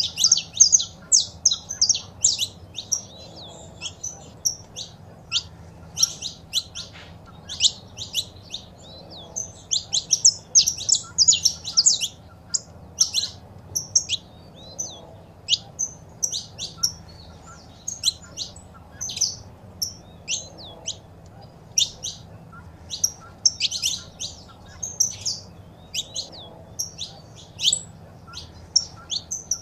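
Saffron finches chirping and singing: dense runs of short, sharp, high-pitched notes in quick clusters, a female's calls mixed with a male's song.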